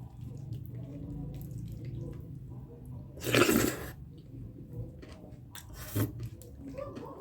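Close-miked eating of soupy stinging-nettle and maize rice: wet chewing and small mouth clicks, with a short, louder wet sound about three seconds in and a smaller one near six seconds.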